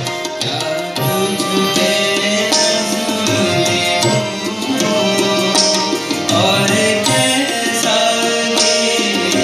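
Tabla and harmonium playing a ghazal accompaniment: steady drum strokes over held reedy chords.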